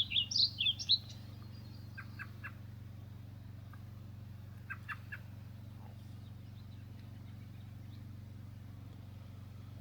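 A songbird sings a quick run of high chirps in the first second, then sandhill cranes call twice from a distance, short bursts of about three notes each around two and five seconds in. A steady low hum runs underneath.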